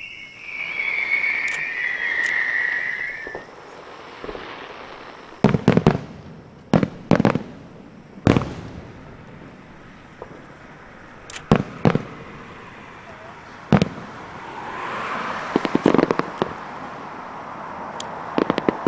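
Aerial fireworks shells bursting in a series of sharp booms, about ten in all, several in quick pairs. A high whistle, slowly falling in pitch, fills the first three seconds or so.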